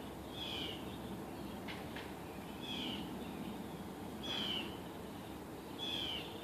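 An animal calling from the trees: short, high calls that fall in pitch, four of them about one and a half seconds apart.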